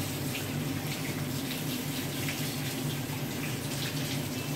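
Kitchen tap running steadily into a stainless steel sink, the stream splashing over hands being rubbed together under it.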